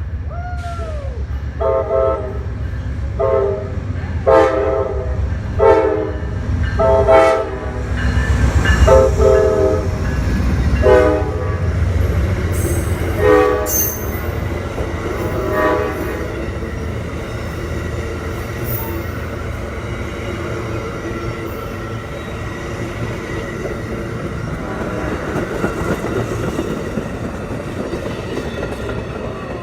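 Train horn sounding a quick series of about ten short blasts, each several notes at once, over the loud rumble of a passing train. After the blasts stop, about halfway through, the train keeps rolling by with a steady rumble and rail noise.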